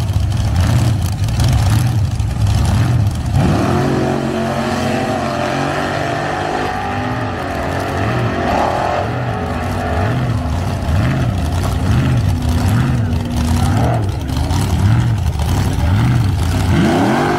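Drag-race car engine running loud, its revs rising and falling about once a second in a steady rhythm, with a harsher, crackly stretch in the first three seconds and the pitch climbing again near the end.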